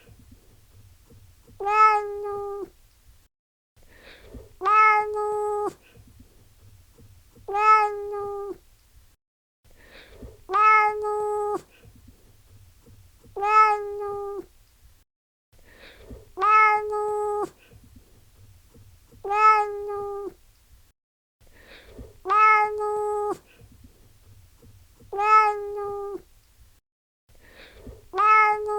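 Domestic cat meowing: the same steady-pitched meow of about a second, repeated about every three seconds, ten times in all.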